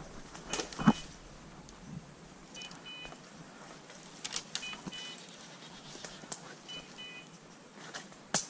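A hunting dog's beeper collar giving short double beeps about every two seconds, the steady rhythm it keeps while the dog is moving rather than on point. Over it are scattered sharp snaps and rustles of twigs and brush underfoot, the loudest about a second in and near the end.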